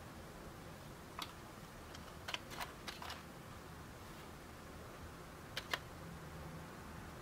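Small sharp clicks from a handheld infrared thermometer being triggered to take a temperature reading: one about a second in, a quick run of four around two to three seconds in, and two more close together later, over faint room hiss.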